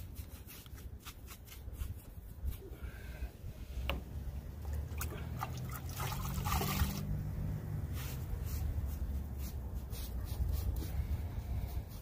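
Sponge sloshed and squeezed in a bucket of liquid, with splashing and dripping loudest about six to seven seconds in, among light taps and rubs of the sponge on the stamped cement wall. A steady low rumble runs underneath.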